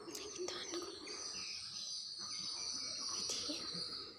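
Birds chirping in short, repeated calls over a steady high background hiss.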